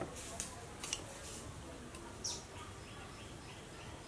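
Faint outdoor ambience with birds chirping: a quick falling chirp a little past two seconds in, then a short run of repeated high chirps, with a few light clicks early on.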